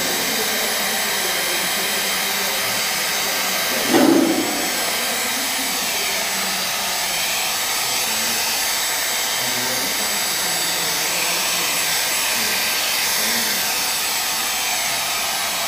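Hand-held hair dryer blowing steadily on the paper to dry wet watercolour paint, with the tone shifting slightly as it is moved along the sheet. A brief louder knock about four seconds in.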